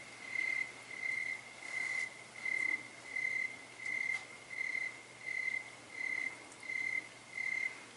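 A cricket chirping steadily, about one and a half short, high chirps a second on one even pitch.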